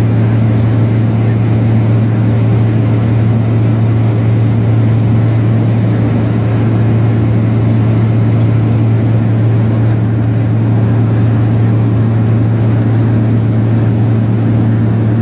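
Steady drone of the aircraft's engines and airflow heard inside the cockpit on approach: a strong low hum with fainter higher tones over an even rushing noise, unchanging throughout.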